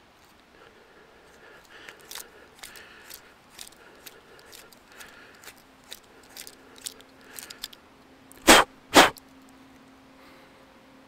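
Reamer of a Swiss Army knife twisted into the end of a branch to bore a hole: irregular scraping clicks of the steel cutting the wood. Near the end come two loud, short bursts of noise about half a second apart.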